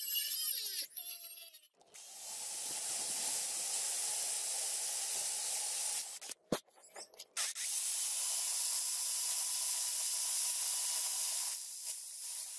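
Power drill boring through a steel knife tang with a twist bit: a steady high hiss in two long stretches, with a short break and a sharp click about six and a half seconds in. Briefly at the start, a rotary tool's sanding drum on the steel gut-hook blade, its pitch falling away.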